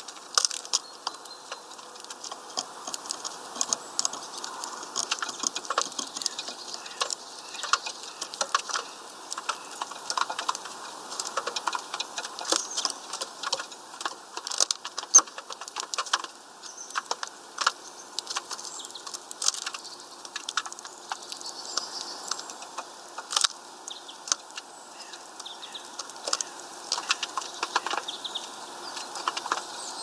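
Small birds pecking and hopping on a wooden-branch feeder: many sharp, irregular taps and clicks, with faint chirps among them.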